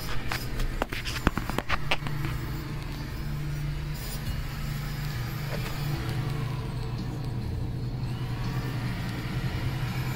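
An engine idling steadily with a low, even hum, with a few sharp clicks and knocks in the first two seconds.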